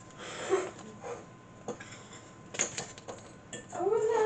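A knife tapping and knocking on the cutting surface while strawberries are sliced: a handful of separate sharp clicks and knocks. Near the end a voice makes a short drawn-out sound.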